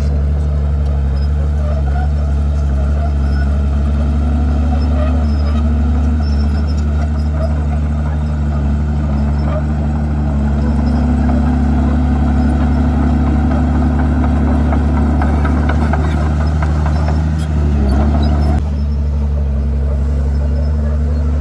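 Komatsu D51PX bulldozer's diesel engine running steadily under load, with a constant low drone and rattle from the machine. The engine note shifts a little as the load changes, and grows louder for about a second near the end before easing back.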